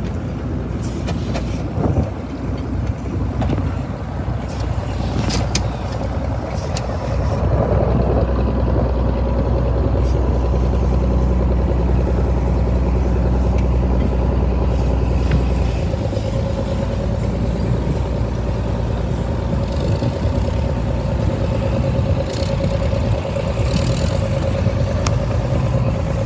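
Frick steam traction engine and machinery running, with scattered clanks early on. A heavy low rumble drops away about two thirds of the way through, and a steady whine sets in about a third of the way in and holds.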